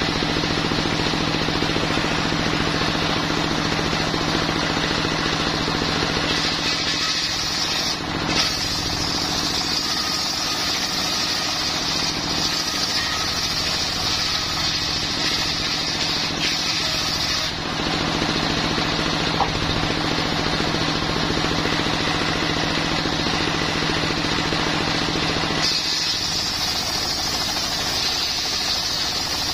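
A single-cylinder diesel engine running steadily, driving a large circular saw blade ripping coconut wood into boards. The blade's high cutting hiss drops out briefly about seven seconds in and again from about 17 to 26 seconds, while the engine carries on.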